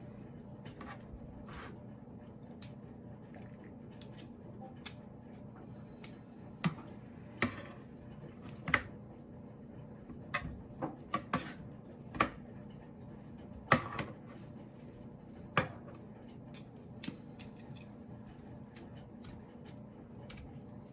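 Kitchen shears snipping and handling a rotisserie chicken: a dozen or so sharp, separate clicks spread unevenly over a faint steady hum.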